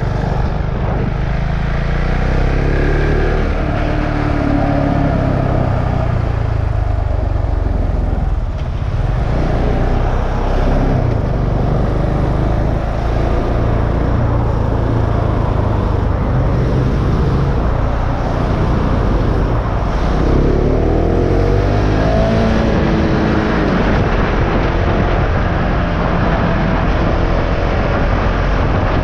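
KTM Duke 690's single-cylinder engine running as the motorcycle is ridden, its pitch rising and falling a few times.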